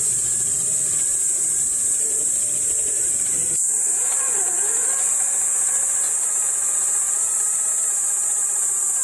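Electric motor and gear whine of an Axial SCX10 III 1/10-scale RC crawler, its pitch rising and falling with the throttle as it crawls over rocks, over a steady high-pitched hiss. The sound breaks abruptly about three and a half seconds in, then carries on.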